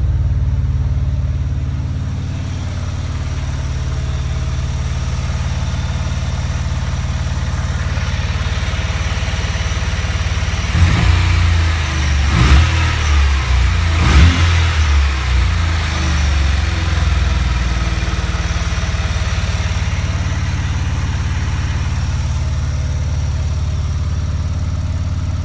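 Mazda RX-7 rotary engine running with a misfire. It idles, then is revved unevenly a few times about halfway through, with sharp spikes in the sound during the revs, and settles back to idle.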